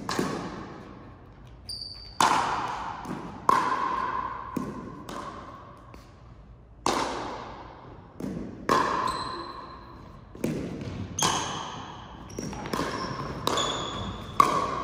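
Pickleball doubles rally: about ten sharp pops of paddles striking the plastic ball and the ball bouncing on the floor, each ringing on in the gym's echo. A few short high squeaks sound between the hits.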